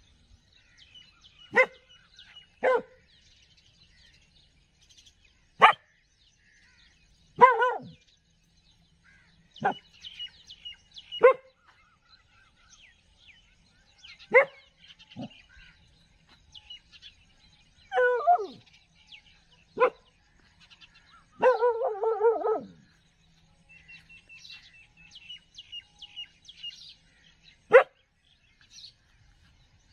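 Street dog barking in single sharp barks every few seconds, with a quick run of barks about two-thirds of the way through. Birds chirp faintly between the barks.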